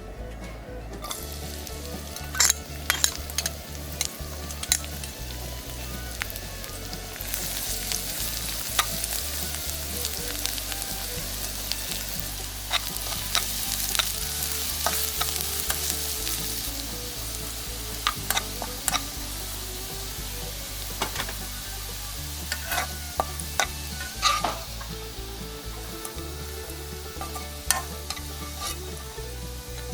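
Food sizzling as it is stir-fried in a hot pan, with a spatula clicking and scraping against the pan now and then. The sizzle is loudest in the middle.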